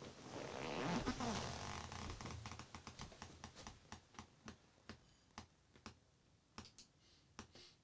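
Faint rustling of clothing and a leather office chair, with a brief creak about a second in, as a man leans forward and gets up from it. Then a string of soft, irregular clicks follows, about two a second.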